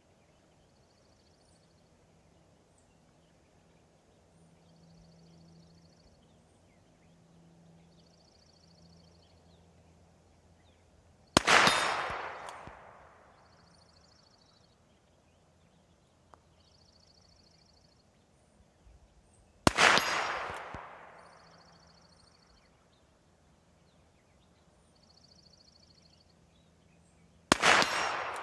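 Three shots from a Ruger New Model Single Six revolver firing .22 LR (CCI Blazer), about eight seconds apart, each a sharp crack with an echo that fades over a second or so. Each is followed about half a second later by a faint tick of the bullet striking the steel target. A faint high trill repeats every second or two between the shots.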